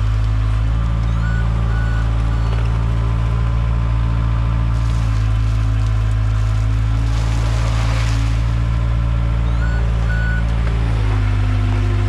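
Case 410 skid steer's diesel engine running steadily while the hydraulic loader arms lift the bucket, its note shifting slightly about five seconds in and again near the end.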